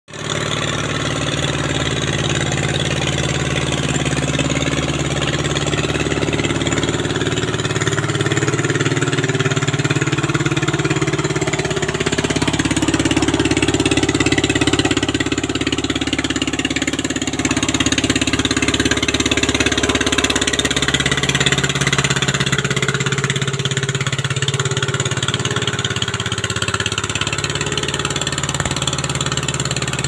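Small engine of a walk-behind hand tractor running steadily as it plows a flooded rice paddy, its pitch shifting a little a few times.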